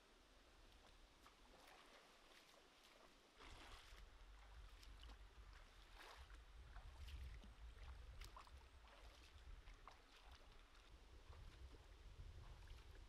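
Bare feet wading through a shallow, rocky stream, a quiet splash with each step. A low rumble comes in about three and a half seconds in.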